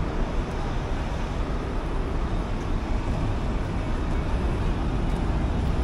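Steady city street noise: a low traffic rumble under an even hiss.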